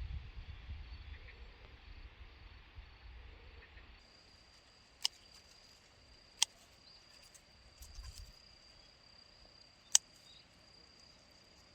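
Faint steady high-pitched insect trill, with a low rumble in the first few seconds and three sharp clicks about five, six and a half and ten seconds in.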